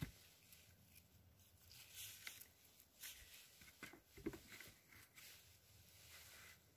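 Near silence, broken by a few faint rustles and light taps of handling, the loudest about four seconds in.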